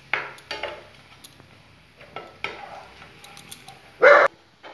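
A dog barking in short barks, the loudest one about four seconds in, with a metal slotted spoon clinking in a frying pan as fried paneer is lifted out of the oil.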